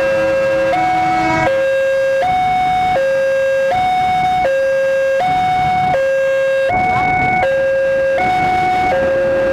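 Railway level-crossing warning alarm sounding a repeating two-tone electronic chime, a lower and a higher tone taking turns about every three-quarters of a second. From about seven seconds in, the rumble of a passing KRL electric commuter train joins it.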